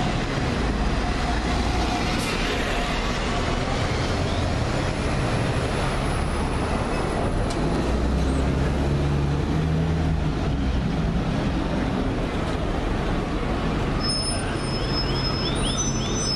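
Diesel double-decker buses, Alexander Dennis Enviro400s, running as they pull away and pass close by, over steady street traffic noise. The engine tone swells as a bus goes past about halfway through.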